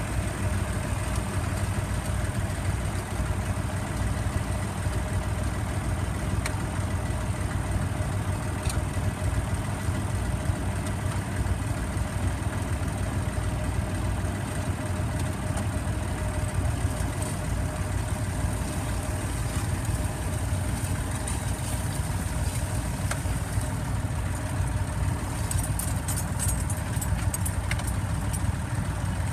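Small vintage tractor engine running steadily under load while it pulls a two-furrow mounted plough through the soil.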